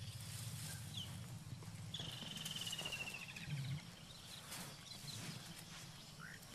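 Faint forest ambience of birds calling: a few short chirps and a longer descending trill about two seconds in, over a low steady hum.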